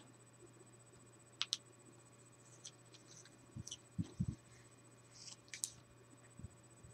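Faint scattered clicks and scratches of a craft knife working along tape on a paper edge over a cutting mat, with a few soft knocks about halfway through.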